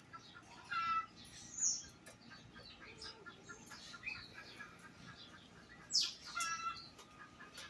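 Several garden birds calling: two loud squawking calls, about a second in and again near six seconds, the second starting with a falling sweep, over a steady scatter of small chirps.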